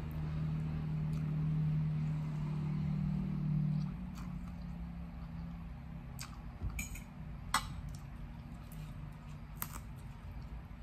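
Eating at a plate of rice noodles: a low, steady closed-mouth hum for about four seconds, then a metal fork clicking and clinking against the plate a few times.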